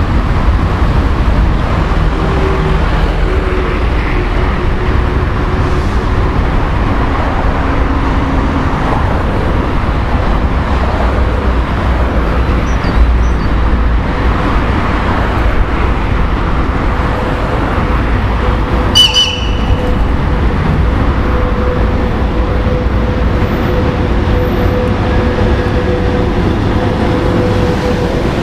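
A VL80T electric locomotive approaching with a freight train over a steady low rumble, its steady hum becoming plain about two-thirds in. About two-thirds in there is one short, high whistle blast.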